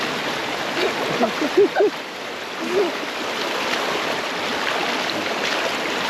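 Steady rush of flowing river water, with a few short voice sounds about a second and a half in and again near three seconds.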